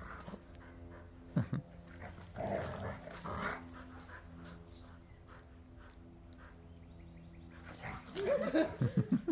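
Two dogs playfighting, making scattered short growls and whines, then a quick run of growl-barks near the end as they tangle.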